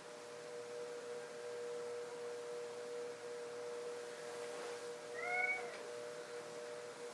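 1980 Casablanca Victorian ceiling fan's K55 motor humming steadily, run at a reduced setting on its cardboard-box variable speed control. A cat meows once, briefly, about five seconds in.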